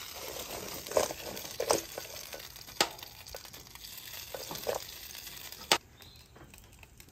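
A metal ladle pouring gravy over fries in a stainless steel mixing bowl, clinking against the bowl a few times, with the sharpest knocks near the middle and near the end. A steady hiss runs underneath.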